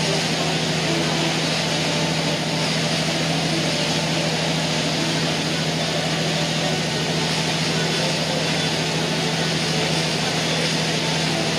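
A boat engine drones steadily with a low hum, under an even rush of wind and water, as heard on board a cruising boat.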